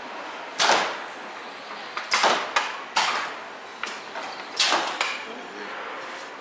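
The mechanism of a giant walking mechanical caterpillar working as its rider drives it by lever: a run of short, sharp hissing bursts, about seven of them, irregularly spaced, over a steady hall background.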